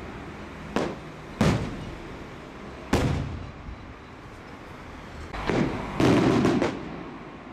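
Colour multibreak aerial firework shells from the 12th May Fireworks Factory bursting with sharp bangs overhead, each bang trailing off, two loud ones in the first three seconds and a rapid run of several breaks about six seconds in.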